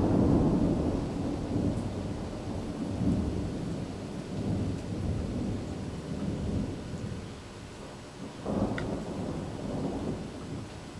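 Thunder: a sudden loud clap at the start that rolls on as a low rumble for several seconds, then a second rumble about eight and a half seconds in, with rain falling throughout.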